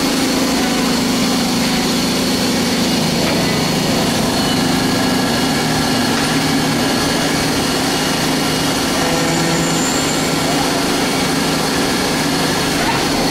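2002 Hanwha SL-20HP Swiss-type CNC lathe running under power: a steady mechanical hum with a thin, high-pitched whine above it.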